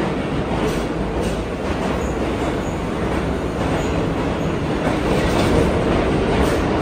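R46 New York City subway cars running past the platform: a steady rumble of steel wheels on rail with faint clacking over the rail joints and a few brief high squeals. It grows a little louder near the end.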